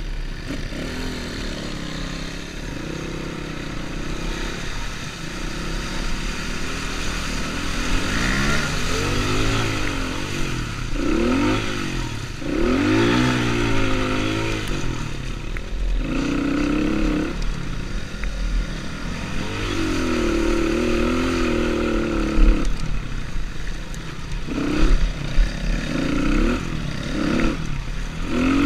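Enduro motorcycle engine being ridden off-road, its revs rising and falling again and again as the throttle is worked. A few sharp knocks come in the second half.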